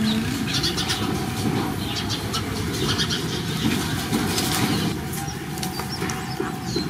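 Rustling in grass over a steady background hiss, as animals shuffle and nose around, with a few faint short high chirps in the second half.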